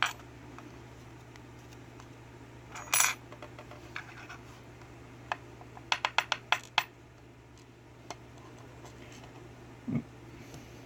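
Small metal lock pins from a gutted Abus euro cylinder clinking onto a hard surface: a cluster of clicks about three seconds in and a quick run of about seven light clicks around six seconds, then a single soft knock near the end.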